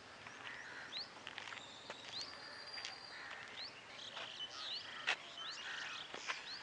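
Birds chirping, faint: short rising calls repeating roughly once a second, with a few sharp clicks scattered among them, the loudest about five seconds in.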